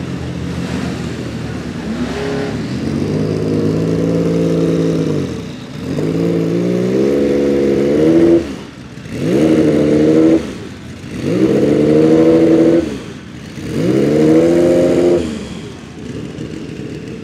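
Porsche 961's 2.9-litre twin-turbo flat-six revved while standing still. The revs rise and fall away about five times in a row, then the engine drops back to a quieter idle near the end.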